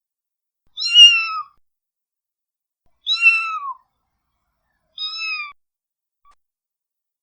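Cat meowing three times, about two seconds apart. Each is a short, high call that drops in pitch at the end, with silence between.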